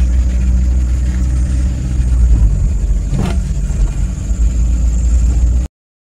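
Steady low rumble of engine and road noise inside a moving car's cabin, with a brief sound falling in pitch about three seconds in. The sound cuts off suddenly near the end.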